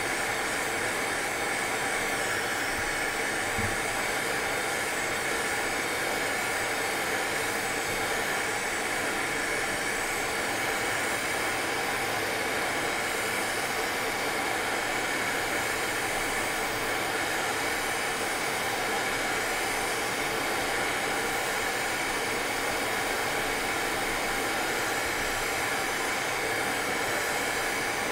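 Hot air rework station blowing steadily, reflowing the solder to seat a new memory chip on the graphics card.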